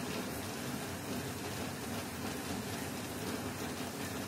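Heavy rain falling steadily: an even, continuous hiss of downpour.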